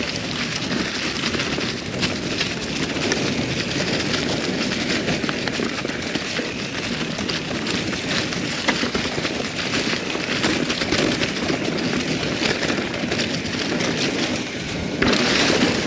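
A Norco Sight mountain bike rolling fast down a rough dirt trail: steady tyre noise, with the bike clattering and rattling over roots and rocks. The noise grows louder near the end.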